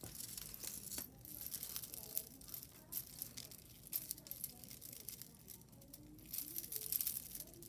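Costume jewelry being handled and sorted: metal pieces and chain clinking and tapping together in scattered light clicks.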